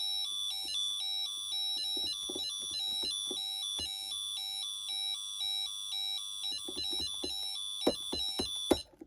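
Intruder alarm control panel sounding an electronic alarm tone that alternates rapidly between two pitches, with light clicks over it; the tone cuts off suddenly near the end.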